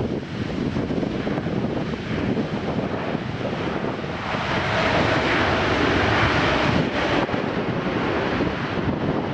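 Jet airliner engine noise mixed with wind buffeting the microphone, swelling for a few seconds in the middle with a faint steady whine.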